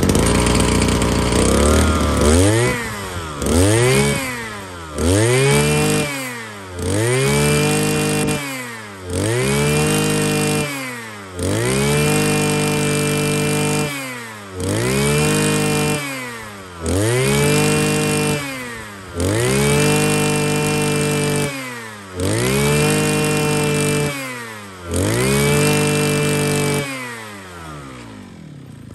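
Mitsubishi TL33 33 cc two-stroke brushcutter engine revved over and over, about a dozen times: each time it climbs from idle to full speed, holds about a second and drops back. It settles to idle near the end.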